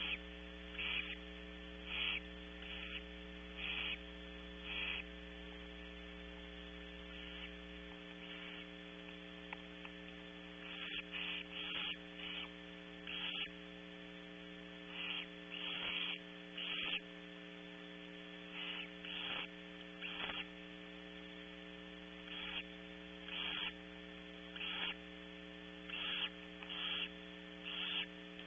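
Barn owl nestlings giving short, raspy hissing begging calls at feeding time, repeated about once a second in runs broken by pauses of a few seconds, over a steady electrical hum.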